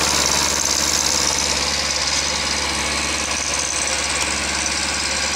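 Milling machine running steadily as its end mill cuts the spiral flight of a steel cone screw for a screw log splitter, with a steady motor hum underneath. The high cutting hiss thins out about two seconds in.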